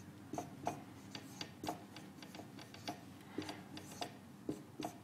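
Whiteboard marker writing on a whiteboard: a faint, irregular series of short taps and strokes.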